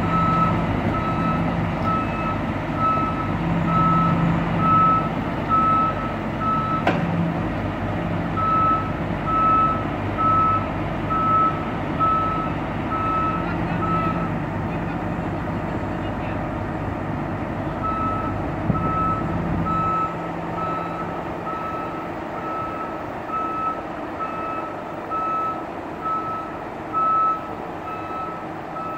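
John Deere W330 combine harvester's reversing alarm beeping at a steady one-and-a-half beeps a second over its diesel engine, as the combine backs up the ramps onto a lowboy trailer. The beeping stops for a few seconds about halfway through and then resumes. There is one sharp click about a quarter of the way in, and the engine's low rumble eases off about two-thirds through.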